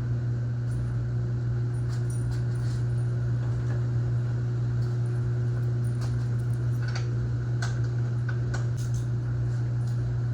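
Light metal clicks and clinks of a wrench working the negative (ground) terminal clamp on a car battery, scattered and bunched mostly a couple of seconds in and again near the end, over a steady low hum.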